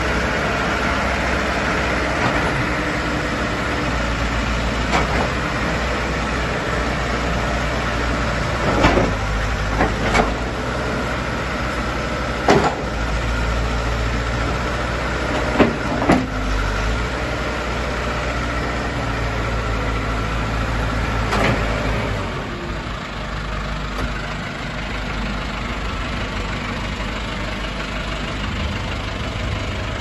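2003 JCB 3CX backhoe loader's diesel engine running steadily as the front loader arm lifts and the bucket tilts, with several sharp knocks scattered through, the loudest about twelve and sixteen seconds in. The engine note drops a little about twenty-two seconds in.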